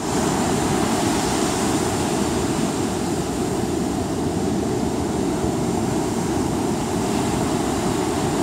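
Ocean surf washing up a sandy beach: a steady, unbroken rush of waves, heaviest in the low rumble.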